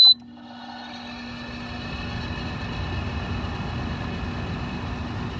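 Frigidaire LAD254NTL dehumidifier powering on: a short high beep from the control panel, then the blower fan motor spinning up over about two seconds and running steadily with a low hum. The compressor has not yet started.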